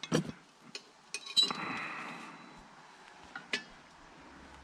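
Light metallic clinks and clicks of scrap metal pieces being handled and snipped, with one louder ringing clink about a second and a half in, followed by a short scrape.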